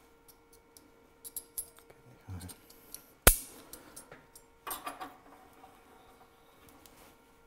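Small metal parts and tools being handled at the lathe: scattered clicks and clinks, a dull thud about two seconds in, one sharp knock a little over three seconds in (the loudest), and a short clatter near five seconds. A faint steady hum runs underneath.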